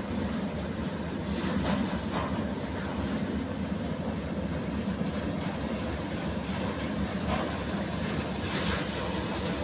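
Tractor-powered paddy thresher running steadily while rice sheaves are fed in: a continuous mechanical drone of the engine and spinning threshing drum, with a few brief swishes.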